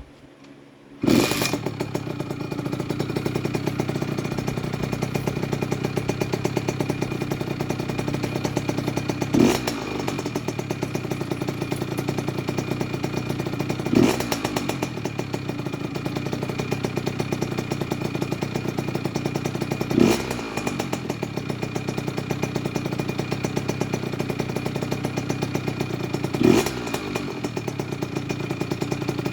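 Kawasaki KX65's 65cc two-stroke single-cylinder engine comes in suddenly about a second in and runs at idle, with four short throttle blips spread through. The freshly rebuilt motor is being run through a break-in heat cycle.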